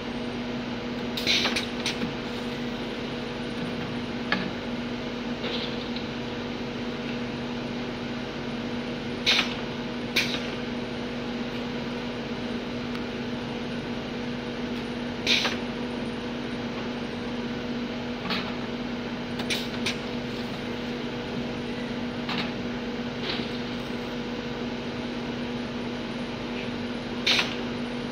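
Bottle-filling machine line running with a steady mechanical hum, with short knocks and clacks now and then as empty plastic bottles are handled and set on the filler's platform.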